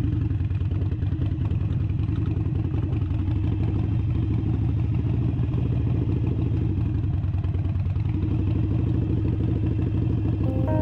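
Harley-Davidson V-twin motorcycle engine running steadily at low speed while riding.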